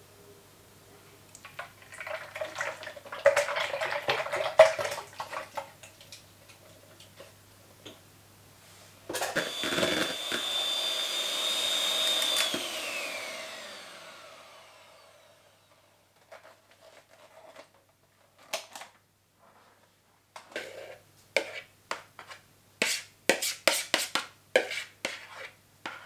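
Electric hand mixer whipping cream, running with a steady high whine for about three seconds and then winding down as it is switched off. Before it, kitchen utensils clatter; near the end comes a quick run of clinks and taps.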